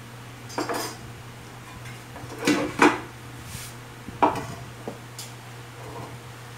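A plastic handle and a tape measure handled and set down on top of a speaker cabinet: about four short knocks and clatters, the loudest about three and four seconds in, over a steady low hum.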